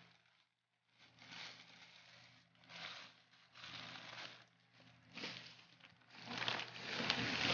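Plastic bags rustling and crinkling as they are handled, in a series of short bursts after a brief quiet moment at the start, growing louder near the end.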